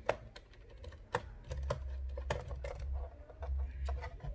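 Irregular light clicks and taps of a small Phillips screwdriver and fingers on a laptop's plastic bottom case as its screws are worked out, with a low handling rumble through the middle.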